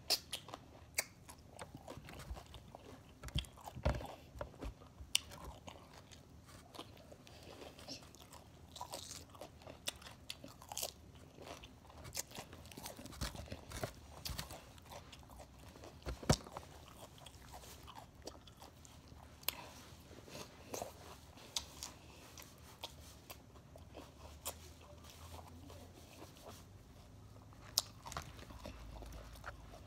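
Close-up eating sounds: crunchy food being bitten and chewed, with irregular sharp crunches and mouth clicks.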